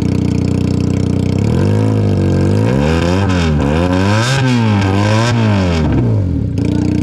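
Benelli TNT 300's 300 cc parallel-twin engine, breathing through an Ixil aftermarket exhaust with the dB killer removed. It idles, is blipped up in about four quick revs, then settles back to idle near the end.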